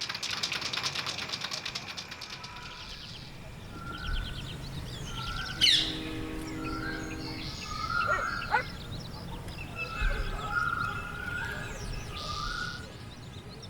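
Several birds chirping and whistling in short, repeated calls over a steady low background rumble.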